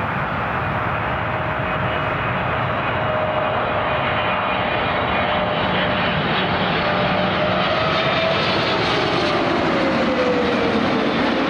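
Jet airliner's engines running loud and steady, with a whine that drops in pitch near the end.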